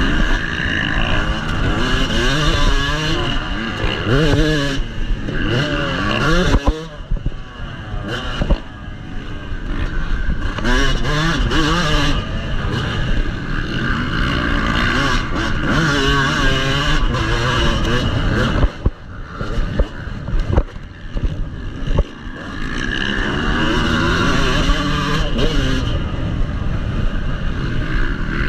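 Yamaha motocross bike's engine racing on a dirt track, revving up and climbing in pitch again and again through the gears, with the throttle shut off briefly about seven seconds in and again for a couple of seconds near the twenty-second mark.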